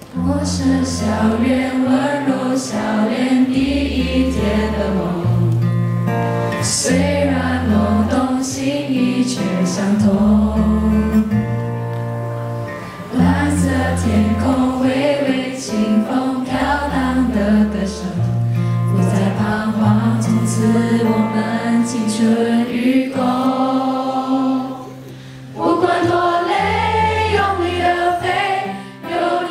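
Two girls singing a Chinese-language song together into microphones, accompanied by an acoustic guitar. The music is continuous apart from a brief lull about 25 seconds in.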